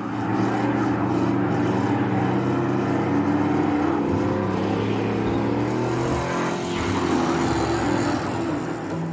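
Car engine revving hard and running at high revs, its pitch rising and falling.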